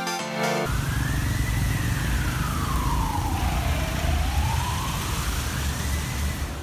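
Street traffic rumbling with a siren wailing over it in one slow cycle: its pitch rises, sinks over about two and a half seconds, then rises again. Music cuts off about half a second in.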